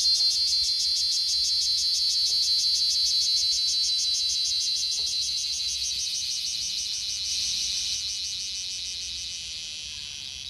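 Cicadas calling in a steady, high-pitched, rapidly pulsing drone that fades out gradually toward the end.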